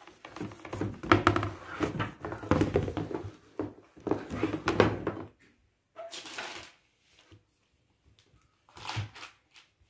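A large folding cardboard game board and its box being handled: card rustling and sliding, with light knocks as the board is opened out and laid flat. Busy for about five seconds, then a few short scrapes.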